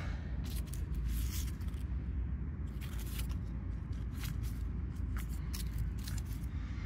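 Knife blade scraping and brushing dry leaves and loose soil aside to uncover half-free morels: a scatter of short scrapes and rustles over a steady low rumble.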